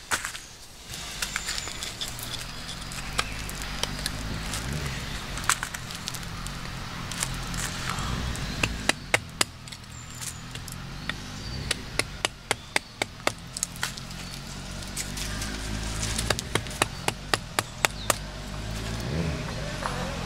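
Rubber mallet tapping a carving gouge into the bowl of a wooden spoon to hollow it out: several runs of sharp wooden taps, about three to four a second, in the second half, over a low steady hum.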